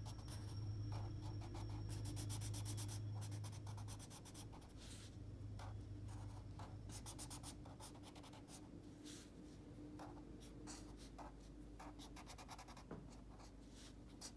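A crayon scribbling on paper in quick back-and-forth strokes as small patches are colored in. A low steady hum sits under it for the first few seconds.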